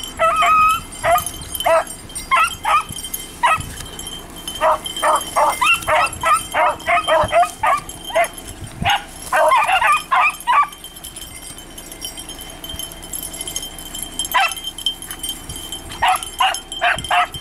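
Beagles baying in quick bursts of high-pitched yips, falling quiet for a few seconds in the middle before starting again: hounds giving voice on a scent line, likely a rabbit's.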